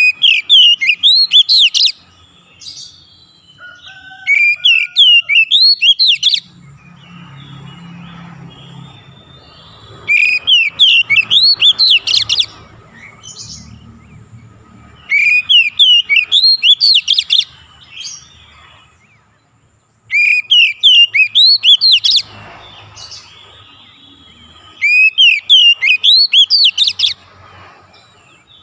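Oriental magpie-robin (kacer) singing: six loud phrases of about two seconds each, every one a quick run of gliding whistled notes, with short pauses between them.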